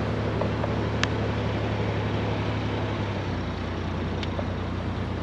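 Narrowboat's diesel engine running steadily, its low note shifting slightly about three seconds in.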